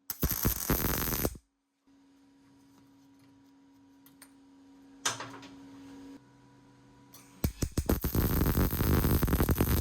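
Electric welder arcing, welding a bush onto a dirt bike frame's foot peg mount: a short run of crackling and buzzing lasting about a second, then a longer run starting about two-thirds of the way in. A faint steady hum sits in the pause between the two runs.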